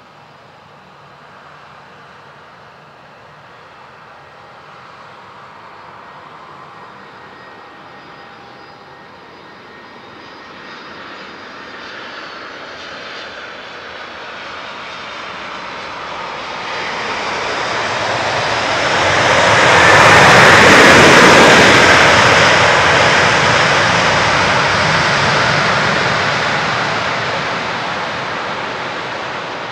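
Jet engines of an Atlas Air Boeing 747-400 on the runway: a faint whine grows steadily into a loud roar as the jet passes, loudest about two-thirds of the way through, then slowly fades.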